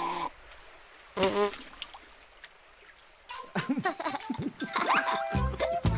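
Cartoon sound effect of a hollow reed blown into water: a short bubbling blow at the start, then a short wavering toot about a second in. Music begins about three seconds in, with a bass beat joining near the end.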